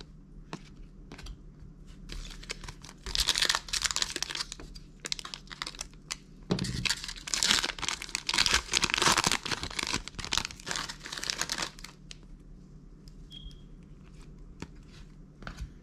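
Foil trading-card booster pack crinkling and tearing open in the hands, in two loud spells of crackling. Near the end come faint clicks of the cards being handled.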